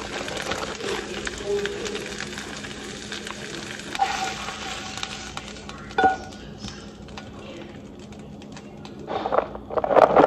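Chorizo sizzling in a hot frying pan, crackling that fades over the first few seconds. A fork knocks and scrapes against the pan twice as the meat is served. Near the end comes a clatter of a plastic container against the plate.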